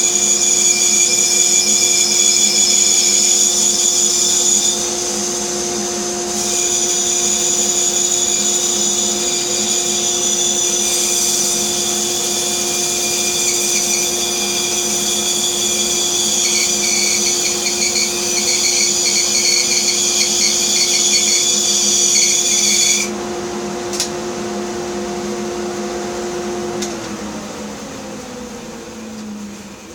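Bandsaw running and cutting wood, a steady motor hum under a hissing cut that dips briefly and then stops about three-quarters of the way through. Near the end the saw is switched off and its hum falls in pitch as it coasts down.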